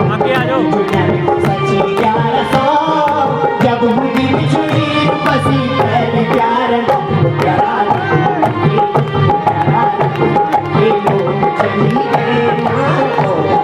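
Kumaoni folk music played live: a hand drum keeps a steady rhythm under a wavering melody line, with no singing in this passage.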